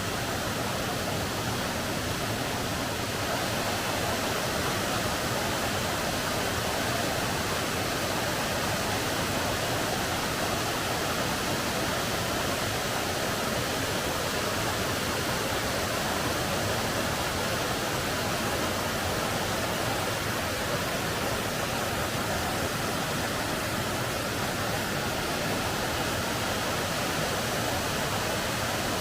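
Waterfall on Stonewall Creek: a steady, even rush of falling water.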